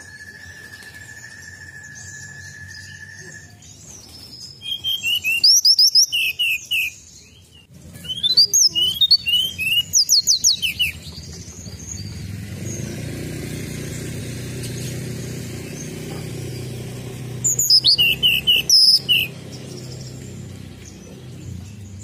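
Hill blue flycatcher (tledekan gunung) singing: three bursts of fast, high, sweeping whistled notes, the first about four seconds in and the last near the end. A steady thin whistle-like tone stops early on, and a low hum runs between the second and third bursts.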